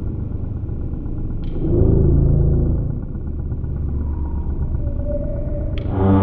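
Background ambient music in a low, rumbling passage, swelling about two seconds in, with organ-like chords coming back in near the end.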